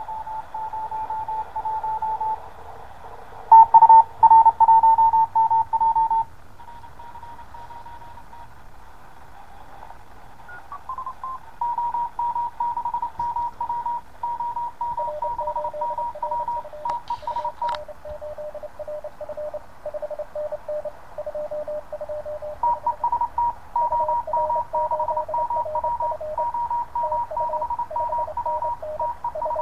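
Morse code (CW) signals on the 20 m amateur band from an HF QRP SDR transceiver's speaker: keyed beeping tones over a steady hiss of static. About halfway through, a second, lower-pitched Morse signal comes in alongside the first, and the two key over each other.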